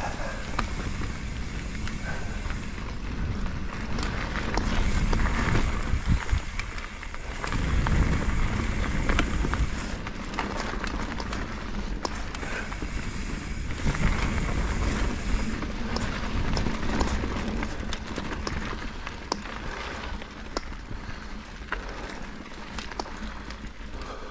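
Mountain bike riding along a dirt trail: tyres rolling over dirt and rocks, with frequent clicks and rattles from the bike. A low rumble swells and fades several times.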